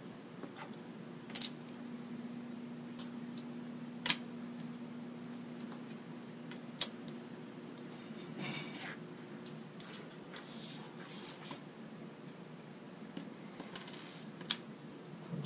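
Small plastic LEGO pieces clicking sharply against a wooden tabletop as they are picked from a loose pile and set down, a few separate clicks several seconds apart, the first a quick double. A faint steady low hum runs underneath.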